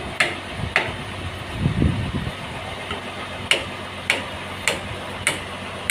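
Sawmill machinery running with a steady engine hum and a regular click about every half second or so, the clicks pausing for a couple of seconds while a short low rumble comes through about two seconds in.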